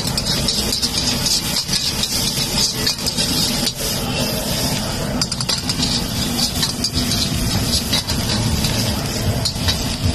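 Metal slotted ladle scraping and knocking against a large iron kadai as onions and green chillies are stir-fried, with repeated short clicks and scrapes over a steady rumble and hiss from the stove's flame.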